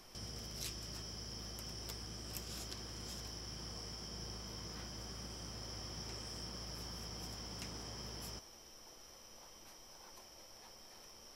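Quiet background noise: a steady high-pitched whine over a low hum, louder for about the first eight seconds and then dropping off suddenly. A few light scratches of a felt-tip pen on sketchbook paper sound over it.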